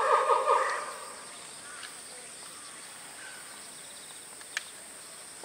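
Steady high insect drone, after a loud, fluttering high-pitched call fades out within the first second; one faint click near the end.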